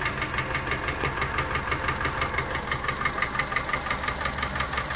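Honda Civic engine running with a fast, even knocking. It is a knock that a new camshaft did not cure, which the owner puts down to worn pistons.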